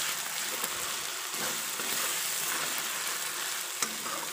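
Sliced onions and tomatoes sizzling steadily in oil in a kadai as a spatula stirs them through the frying masala, with one sharp click near the end.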